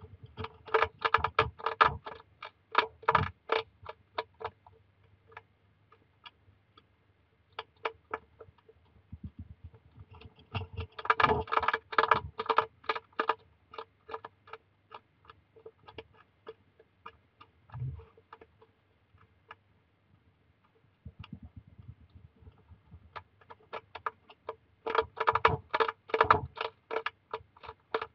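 Hedgehog crunching dry kibble: three bursts of fast crunching, about a second in, around the middle and near the end, with slower scattered crunches between.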